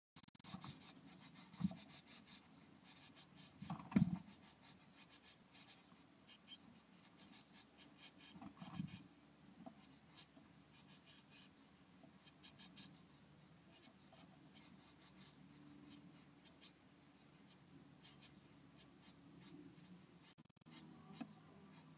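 Faint scratching and rustling of nest material inside a blue tit nest box as the birds shift about, with sharper bumps against the box about two, four and nine seconds in.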